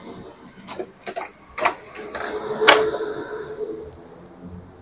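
Parts of an Epson LQ-2190 dot-matrix printer's mechanism moved by hand: several clicks of plastic and metal parts and a squeaky sliding scrape through the middle, with the sharpest click just past halfway.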